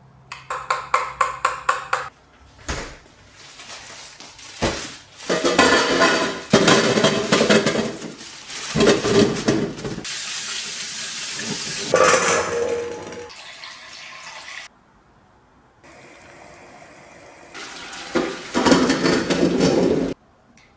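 Tap water running and splashing into a stainless-steel bowl as baby potatoes are washed in a kitchen sink, with the bowl and potatoes clattering. Near the end, water is poured off boiled potatoes into the sink.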